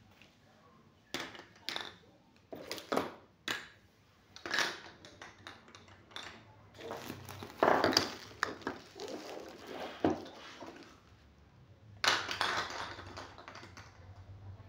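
Grey PVC pipe fittings knocking and clattering as they are pushed aside by hand. There are several short, sharp knocks in the first few seconds, then longer stretches of handling clatter.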